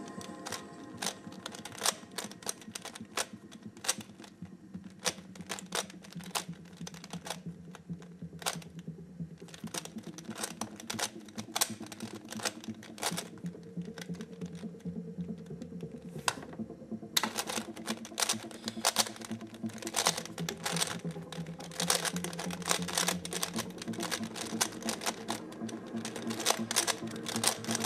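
Plastic 3x3 Rubik's cube being turned by hand: scattered clicks of single layer turns, then past the middle a fast, dense clatter of turns as a timed speedsolve gets under way.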